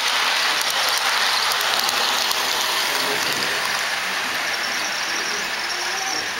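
HO scale model passenger train rolling past close by: its metal wheels running on the track make a steady rushing noise with faint rapid clicks.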